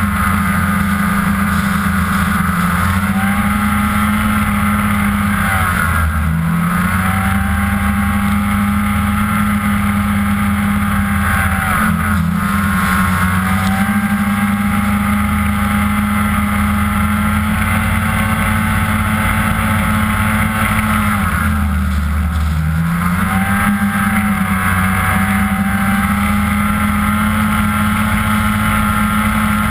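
Ski-Doo MX Z 500SS snowmobile's two-stroke twin engine running hard at a steady high speed, heard from a mount low on the sled's front. Its pitch dips briefly about six seconds in and again a little past twenty seconds, then climbs back.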